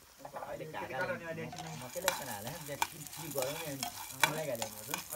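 A metal spatula scrapes and stirs soybeans around a hot iron pan in repeated strokes, the beans rattling and clicking against the metal over a light sizzle.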